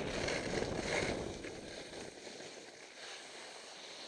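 Skis hissing over packed snow with wind rushing over the helmet camera's microphone, fading after about two seconds as the skier slows.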